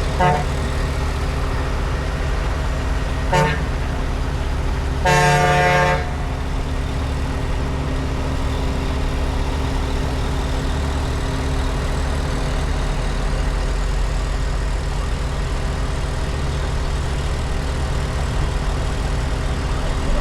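Heavy vehicle engine running steadily while its horn sounds two short toots and then one louder blast of about a second.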